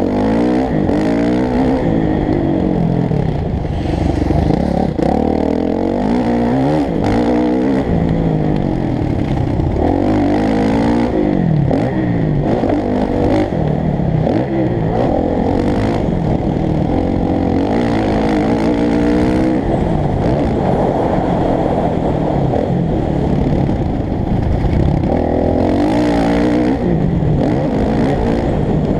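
Motocross bike engine under hard riding, the revs climbing and dropping again and again as the rider accelerates, shifts and backs off around the dirt track.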